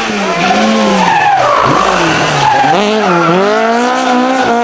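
Ford Escort Mk2 rally car's engine revving hard, the revs dipping and climbing back twice as the car is thrown through a corner, with tyres squealing as it slides sideways.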